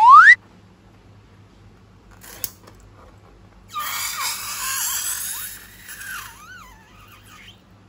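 Air squealing out of a stretched balloon neck: a short rising squeal at the very start, a click about two and a half seconds in, then about four seconds of hissing with a squeal that wavers up and down before fading.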